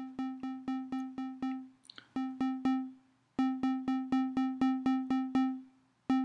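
Synth bass voice (DRC Bass) of the Different Drummer sequencer app playing one repeated note in 16th notes, about four a second at 61 BPM. The run breaks off three times for under a second, where rests drop notes out of the pattern.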